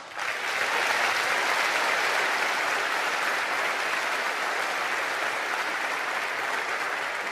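A large studio audience applauding, a dense steady clapping that starts suddenly and eases slightly toward the end.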